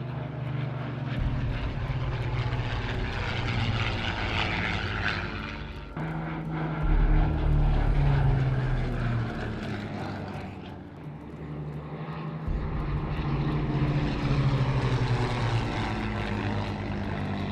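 Propeller-driven warbirds flying low passes, among them a Hawker Hurricane Mk XIIA with its Packard Merlin 29 V12 engine, droning steadily. The engine sound changes abruptly twice, about six and twelve seconds in.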